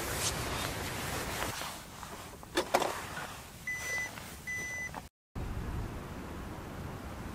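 A digital camera beeping twice, two short even high-pitched beeps just under a second apart, its warning that the battery has run out. A couple of light knocks come shortly before, over a steady hiss.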